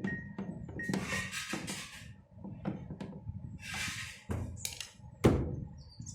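Metal clinks, scrapes and knocks of tools and parts being handled while a washing machine's central bolt is fitted, with a sharp knock about five seconds in.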